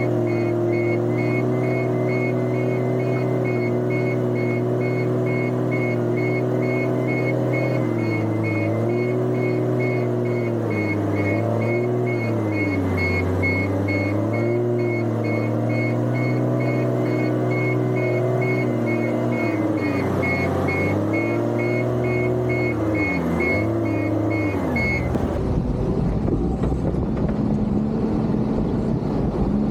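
Case motor grader's diesel engine working, its pitch dipping and recovering several times as it takes load, with a high, rapidly pulsing beep over it. Near the end the sound changes abruptly to a rougher, noisier engine sound.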